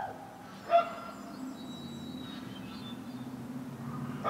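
Two short, high animal yelps: one at the start and a sharper, louder one about a second in. A washing machine runs with a steady low hum underneath.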